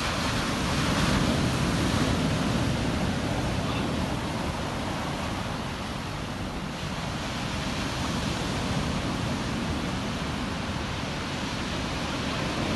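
Surf breaking and washing up a beach, a steady rush of water that swells about a second in and then eases.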